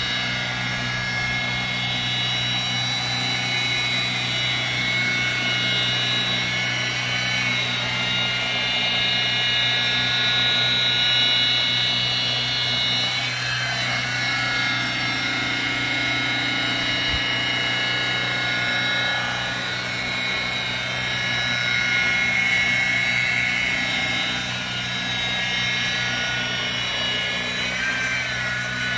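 Rotary polisher with a double-sided wool pad running at about 2,000 RPM, compounding oxidised gel coat on a boat hull: a steady motor whine whose pitch dips briefly twice, about halfway through and near the end.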